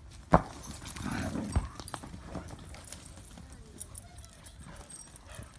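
Dogs scuffling and running about in play on dirt, with scattered knocks of paws and bodies. A sharp thump comes about a third of a second in, and another about a second and a half in.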